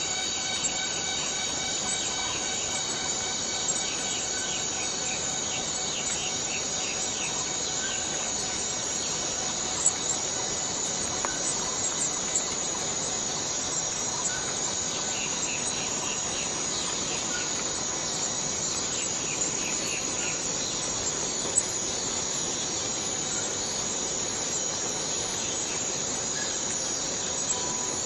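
Rainforest cicadas droning in a steady, high-pitched chorus, with patches of faster pulsing calls mixed in and a couple of brief clicks.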